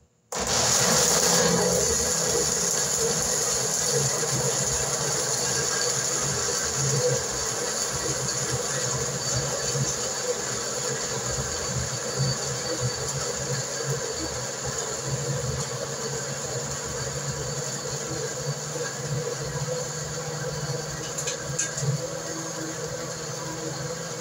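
Electric blender running, grinding corn kernels with water into a yellow liquid for curau. The motor starts abruptly just after the start and runs steadily, with a few light clinks near the end.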